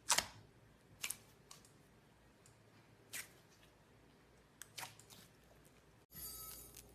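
Clear slime being squished and pulled by hand, giving a few separate sticky pops and clicks, a second or two apart. Near the end the sound cuts suddenly to a steadier faint hiss.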